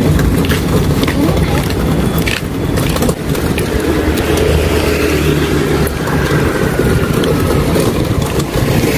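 Metal hand cart loaded with books rolling over asphalt, its wheels and frame rattling in a steady rumble, with street traffic around it.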